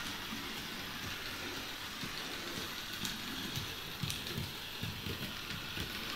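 H0-scale model train running on its track: an electric locomotive pushing a freight wagon loaded with steel nuts, a steady whirring rumble of motor and wheels with small irregular clicks. The wagon's new wheelsets are being run in under extra weight because they do not yet spin freely.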